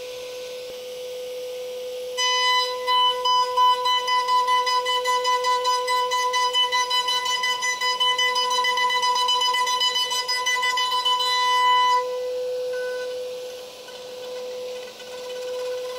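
CNC router spindle whining at a steady pitch. About two seconds in, the end mill starts cutting a 0.5 mm deeper pass along a wooden piano molding, which brings in a louder, pulsing high whine. The cut stops about twelve seconds in while the spindle keeps spinning.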